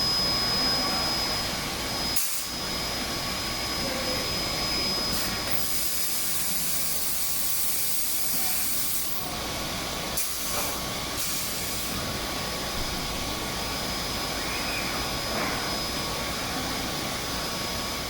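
Woodworking CNC machining centre running, with a steady high whine and several bursts of loud hissing, the longest lasting about three seconds.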